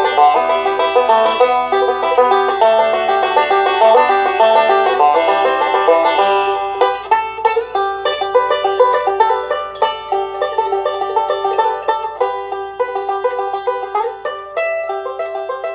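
Background music: an upbeat country banjo-picking tune of quick plucked notes. The fuller backing drops away about six seconds in, and the tune thins and fades near the end.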